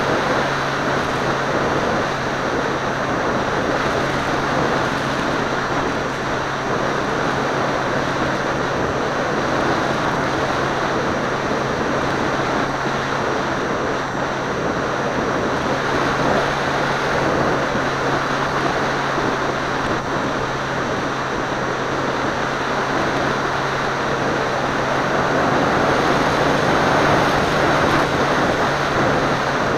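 Seawind seaplane in steady flight, heard from a camera mounted on the aircraft: a constant drone from the motor and propeller under a heavy rush of wind over the microphone.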